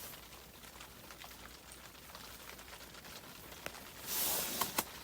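Faint small clicks and taps of fishing tackle being handled. About four seconds in there is a short rustling hiss, with a couple of sharp clicks near the end.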